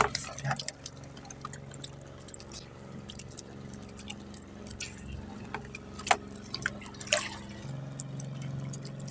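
Water splashing and dripping as a multi-hook fishing line loaded with fish is hauled in over the side of an outrigger boat, with scattered short sharp clicks and splashes. A steady low motor hum runs underneath and grows stronger about three quarters of the way through.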